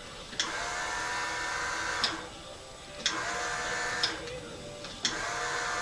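Small electric motor of a homemade motorized turntable switched on and off with a foot switch: it runs with a steady hum in three spells, about a second and a half, then a second, then on again near the end, with a click of the switch at each start and stop.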